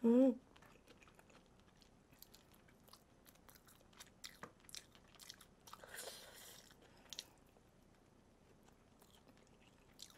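Crispy Golden Olive fried chicken being bitten and chewed close to the microphone: scattered crunches of the coating, with a denser crackle around the middle. A short voiced sound right at the start is the loudest thing.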